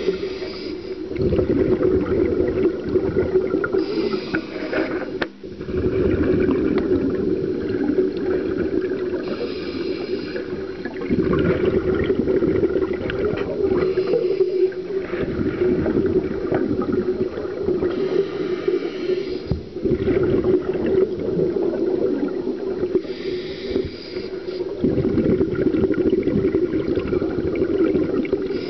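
Scuba regulator breathing heard underwater: a hissy breath roughly every five seconds alternating with the long, low rumble of exhaled bubbles, over a steady low hum.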